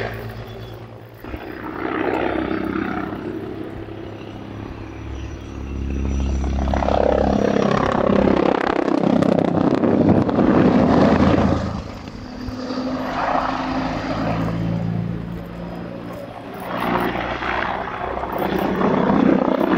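Agusta A129 Mangusta attack helicopter flying an aerobatic display, its rotor and twin turbine engines running. The sound swells and fades several times as it manoeuvres, and is loudest from about six to eleven seconds in.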